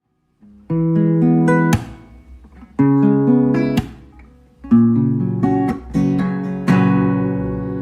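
Acoustic guitar strumming chords as a song's instrumental intro. A new chord starts about every two seconds and rings out between the strums.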